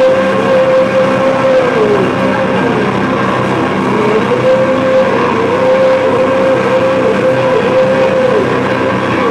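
Loud live heavy rock band: distorted electric guitar holds one high sustained note that slides down in pitch and climbs back, twice, over drums, cymbals and bass.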